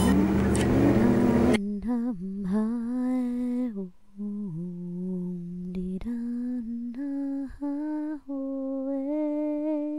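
A harmonica plays briefly at the start. After a sudden cut, a single voice hums a slow tune alone, holding each note for about a second and sliding between them.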